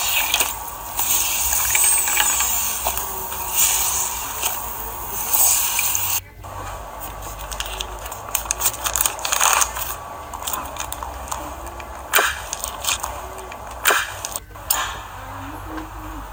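Hands playing with slime: crackly squishing for the first few seconds, then, after an abrupt change about six seconds in, scattered sharp clicks and pops.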